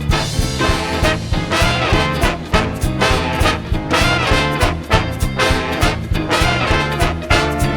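An 18-piece big band playing swing with brass, trombones and trumpets to the fore over a steady drum beat.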